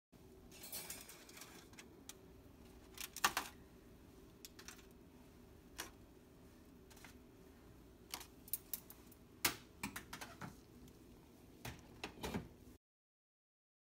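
Foil sample trays clinking and scraping as they are lifted off a metal wire oven rack and set down, with sharp knocks about 3 and 9.5 seconds in, then the drying oven's door shut by its handle near the end, over a low steady hum.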